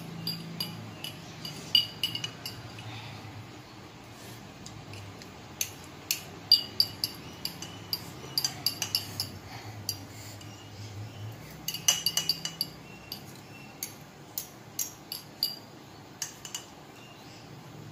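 A metal utensil clinking and scraping against a glass bowl in scattered bursts of sharp, ringing taps as the last noodles are scooped up. The clinks are thickest about six seconds in and again about twelve seconds in.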